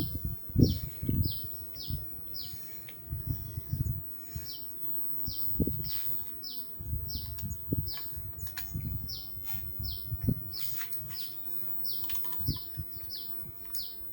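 A bird chirping over and over, short falling chirps about two a second, with irregular knocks and handling sounds from work on the motorcycle's handlebar controls.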